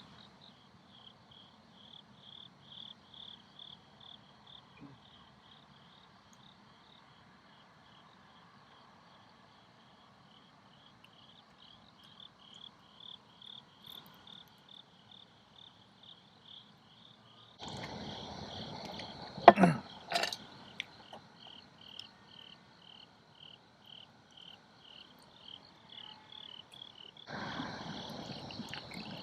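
Insects chirping in an even, high-pitched pulse, several chirps a second. A louder rustling stretch with a sharp knock or clatter breaks in about two-thirds of the way through, and more rustling comes near the end.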